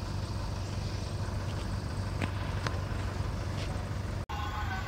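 Steady low engine and traffic rumble heard from inside a car creeping along in slow traffic, with a few faint clicks in the middle and a brief dropout near the end.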